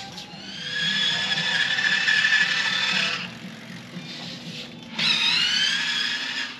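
STACYC electric kids' balance bike's drive whining as it is ridden under throttle. A steady whine runs for about three seconds, eases off, then surges again more loudly about five seconds in, dipping and then climbing in pitch as the bike speeds up.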